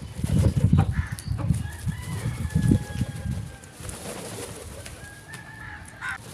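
Birds calling: a run of low, irregular calls for the first few seconds, with thin whistled notes of other birds over them.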